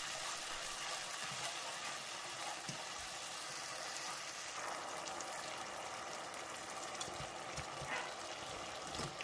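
Mongolian beef sauce with onions and chilies sizzling in a frying pan as it is stirred with a spatula: a steady hiss with a few soft knocks of the spatula against the pan.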